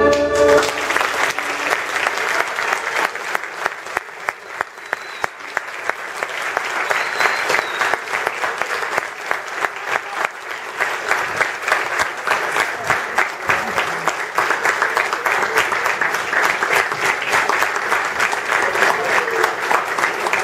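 An audience applauding, with dense steady clapping that eases a few seconds in and swells again. It follows the last moment of a song with violin, guitar and voices, which stops just after the start.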